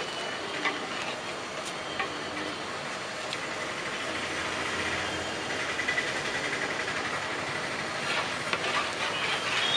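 Steady hiss of a large aluminium pot of biryani masala cooking over high heat, stirred with a long metal ladle that knocks faintly against the pot now and then.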